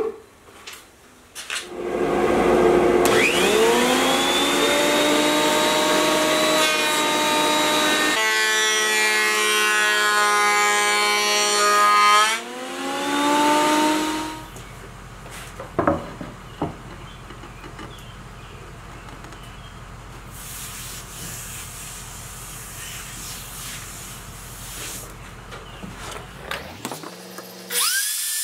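Woodshop power tools cutting hardwood: a machine motor spins up with a rising whine about two seconds in and runs loudly for some twelve seconds, its pitch shifting as the wood is cut, then winds down. A quieter hum with a few knocks follows, and near the end a plunge router's motor spins up with a rising whine.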